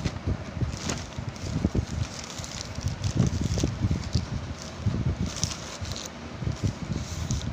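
Irregular rustling and crackling, as of plastic or paper packaging handled close to the microphone, mixed with low thumps of handling noise.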